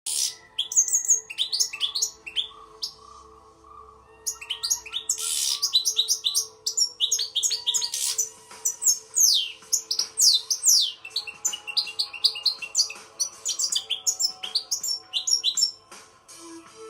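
European goldfinch singing: a rapid twittering song of quick, falling chirps, with a quieter pause of about two seconds near the start before the song resumes.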